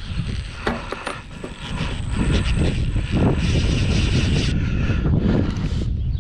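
Steady low rumble with a few light clicks and knocks as the plastic shroud covers of a rooftop RV air conditioner are handled and fitted together. A thin high whine stops about two thirds of the way through.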